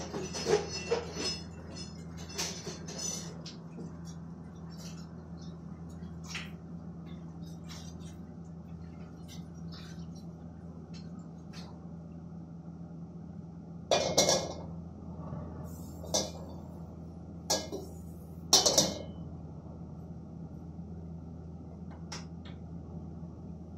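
Scattered clinks and clanks of metal pots, pans and utensils at a gas range, over a steady low hum. The loudest knocks come about halfway through and again a few seconds later.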